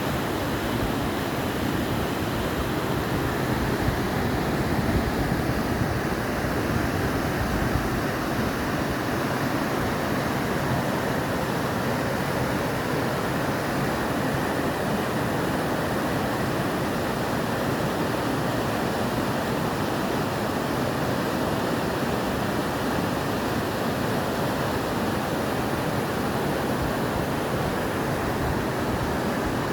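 Mountain river water rushing and gushing over rocks: a steady, even roar of fast-flowing water that does not change.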